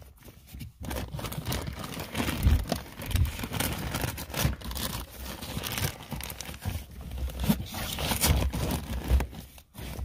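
Rustling, scraping and small knocks as gear is shifted around: a nylon tow strap being pulled and rubbed against hard plastic ammo cans.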